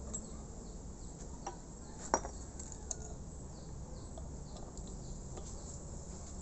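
Small metal clicks and clinks as valve parts and caps on an air compressor head are handled, with one sharper click about two seconds in. Faint chirping runs underneath.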